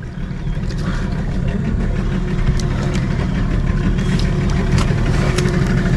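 Steady low rumble of a small outrigger fishing boat's engine idling, with a few light clicks as a conventional fishing reel is cranked.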